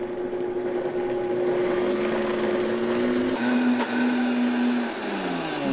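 Vitamix blender motor running at speed, blending a thick avocado and cocoa pudding mixture. About three and a half seconds in its pitch shifts, and near the end it winds down with a falling whine as it is switched off.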